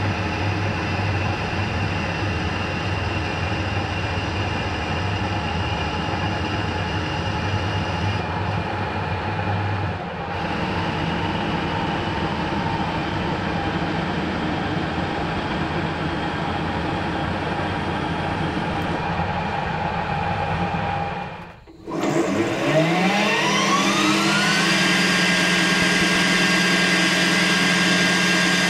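Harrison metal lathe running steadily. Near the end the sound drops away briefly, then the spindle starts again and spins up: a rising whine that levels off after about three seconds into a steady run.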